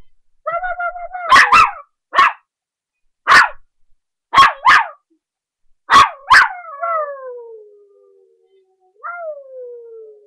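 A young puppy barking and howling: a held high note, then about eight sharp barks in singles and quick pairs, then two long howls that slide down in pitch, the first about six and a half seconds in and the second near the end.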